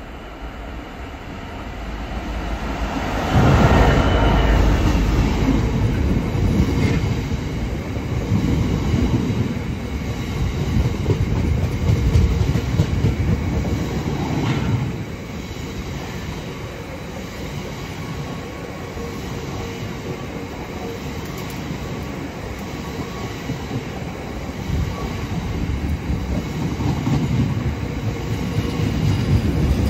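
Freight train of tank wagons passing close by: the locomotive's approach rises sharply to a loud rumble about three seconds in, then the wagons roll past in a steady rumble that eases about halfway and builds again near the end.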